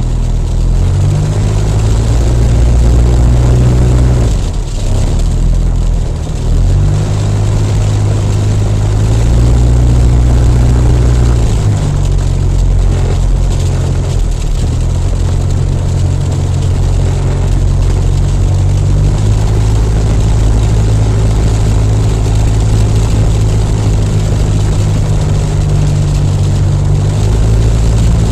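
Jabiru LSA-55 light aircraft's engine and propeller running at low taxi power, heard from inside the cockpit. The engine note steps up and down several times as the throttle is worked, with a brief easing of power about five seconds in.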